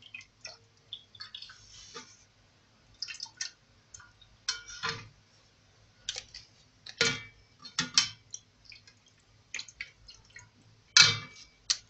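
Liquid splashing and dripping in a bowl as a hand dips and wrings thin dried roqaq pastry sheets in a mixture of broth, milk and butter: irregular short splashes with a few louder ones.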